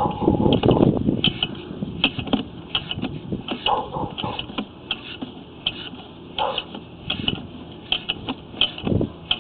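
Irregular clicking and knocking from a sewer inspection camera's push-rod and reel as the camera is fed through the sewer line, with a few short squeaks and a dull thump near the end.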